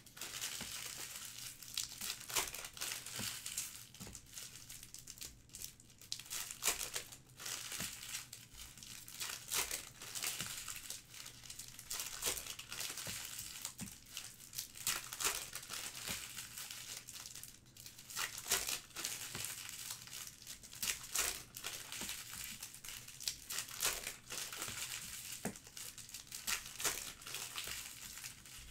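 Foil trading-card pack wrappers crinkling and tearing as card packs are torn open and handled, in a steady run of irregular crackles.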